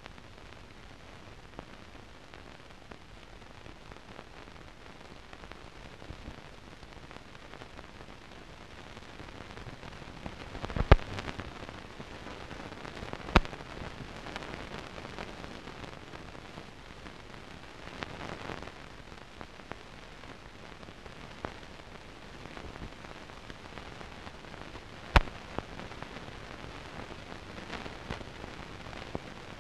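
Surface noise of a silent film's blank soundtrack: a steady hiss with light crackle, broken by three sharp pops spread through it.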